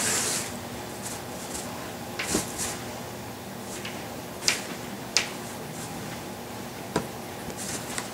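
Cardboard box rustling and scraping, with about four sharp light taps, as a kitten under the box bats out at a wand toy.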